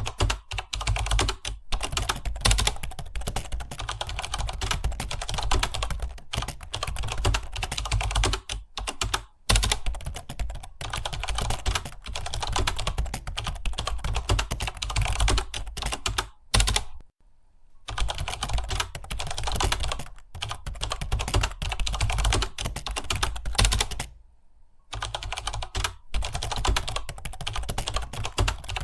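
Rapid, continuous typing on a computer keyboard, a dense stream of key clicks that stops briefly twice, about two-thirds of the way through and again near the end.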